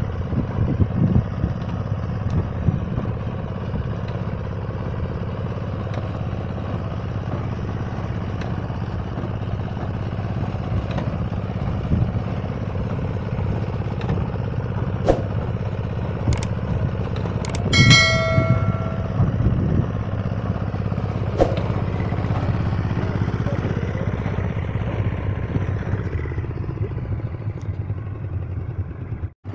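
Engine of a four-wheel reaper binder running steadily under load while it cuts wheat, with the clatter of its cutter bar and binding mechanism. A few sharp clicks sound in the middle, and a short multi-pitched ringing tone about eighteen seconds in.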